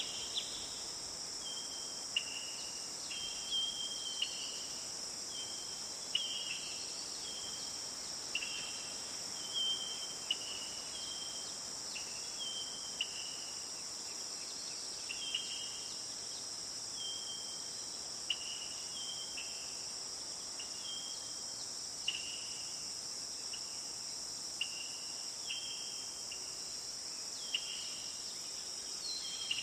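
Forest ambience: a steady, high-pitched insect chorus of crickets trilling, with a short high chirp repeated about once a second over it.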